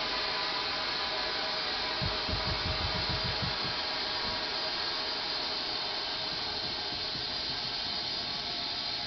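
Compressed air from a 105 PSI tank hissing steadily through a sprinkler valve as it inflates an exercise ball under a mattress. About two seconds in, a brief run of low knocks comes as the mattress lifts.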